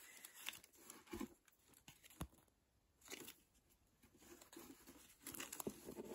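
Faint rustling and crinkling of tissue paper and a knitted jumper being handled, with a few small clicks as the swing tag on its cord is pulled out; the rustling grows busier near the end.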